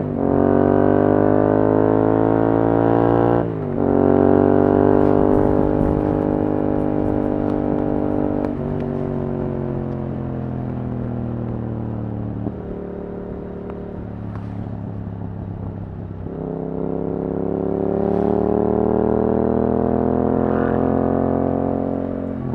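Yamaha R7's parallel-twin engine, breathing through an Akrapovič exhaust, accelerating hard: the pitch climbs and drops sharply at an upshift about three and a half seconds in. Around the middle the revs fall lower and hold, then climb again over the last few seconds.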